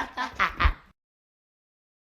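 A high-pitched voice in a run of quick, evenly spaced syllables that cuts off abruptly just under a second in, followed by dead digital silence.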